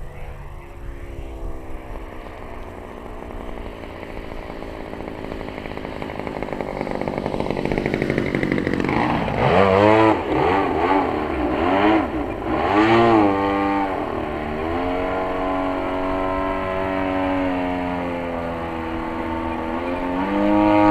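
Desert Aircraft DA-35 two-stroke gas engine of a large RC aerobatic plane in flight. It grows louder over the first several seconds, its pitch swings up and down several times in the middle, and it then settles into a steady drone.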